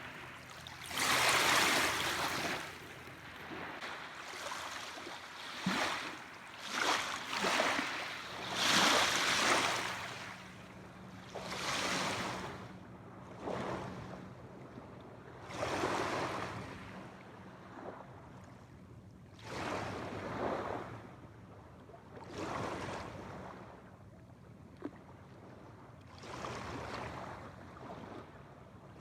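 Small waves breaking and washing onto a shore, a surge of water every two to three seconds.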